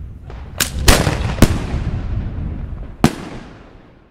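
Italian cylinder aerial firework shell bursting overhead: a series of sharp bangs, the loudest about a second in and a last one about three seconds in, each trailing off in a rolling echo.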